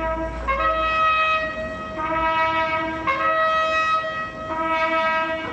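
A military brass band plays slow, sustained chords for an honour guard ceremony, the harmony changing about once a second.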